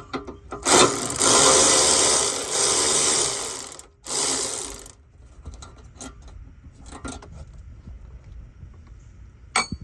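Power tool running a bolt out: one run of about three seconds, a short pause, then a second short run. A few light clicks follow near the end.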